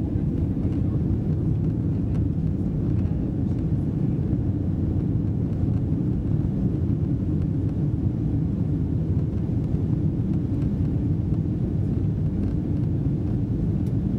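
Steady low drone inside the passenger cabin of a Boeing 777-200 in flight: engine and airflow noise through the fuselage.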